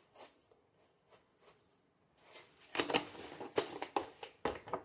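Dried parsley shaken from a spice jar: after a near-silent start, a quick, uneven run of dry shakes begins a little past halfway.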